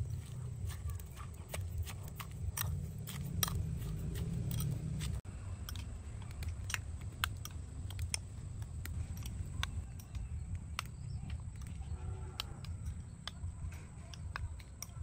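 A metal spoon clinking and scraping against a ceramic bowl in irregular light taps while stirring and pressing chopped chili and aromatics, over a steady low rumble.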